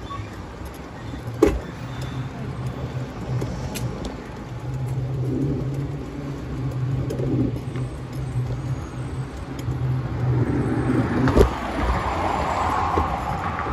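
Road traffic passing close by: cars running along the road, with a steady low engine hum for most of the time and tyre noise swelling near the end. Two sharp knocks stand out, one about a second in and a louder one near the end.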